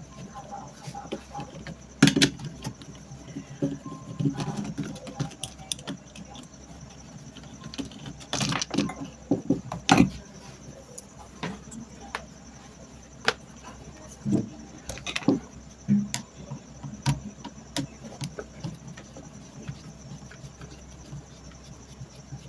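Irregular clicks, taps and knocks of plastic and metal parts being handled as a stand fan's motor housing is taken apart by hand, with a few sharper knocks about two seconds in, around eight to ten seconds in, and near fifteen seconds in.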